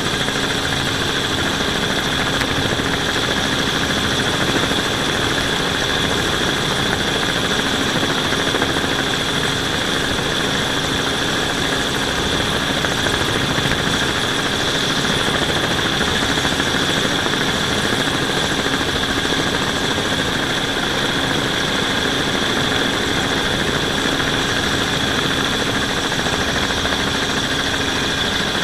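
A camera drone's motors and propellers whining steadily, heard from on board, with a few constant high tones over an even hum.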